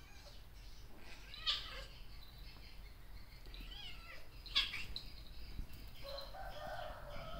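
High-pitched chirping animal calls, with two sharp, louder squeaks about a second and a half in and again at four and a half seconds, and a lower pitched call near the end.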